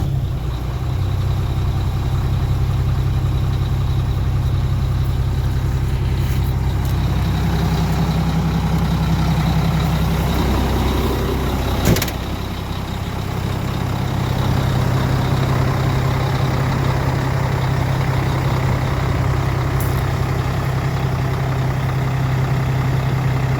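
Volvo D12 inline-six diesel idling steadily just after a cold start, with a sharp click about twelve seconds in.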